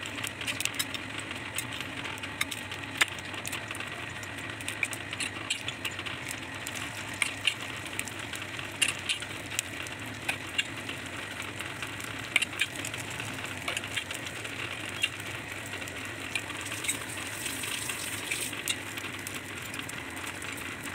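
Beaten egg mix frying in hot oil in the cavities of a paniyaram pan: a steady sizzle with scattered sharp crackles.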